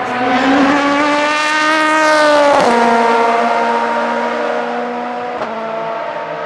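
Prototype race car engine accelerating hard, its note climbing, then shifting up with a sharp drop in pitch about two and a half seconds in. It pulls away at a steadier, fading note, with another upshift near the end.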